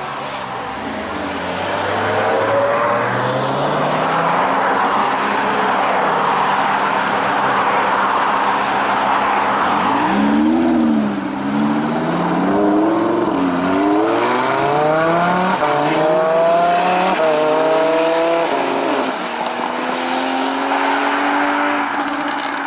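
Lamborghini Huracan LP610-4's V10 with a very loud exhaust system, accelerating hard. In the second half the engine note climbs repeatedly and falls back at each upshift, then settles to a steadier, lower note near the end.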